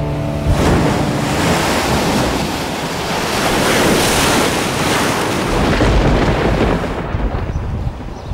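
Heavy ocean surf breaking over coastal rocks: a loud rushing wash that swells to a peak about halfway through, with wind rumbling on the microphone in the second half. The last of the theme music cuts off just as it begins.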